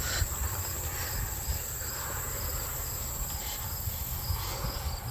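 Insect chorus: a steady high-pitched trilling with a pulsing chirp repeating about twice a second, over a low rumble of wind or handling noise.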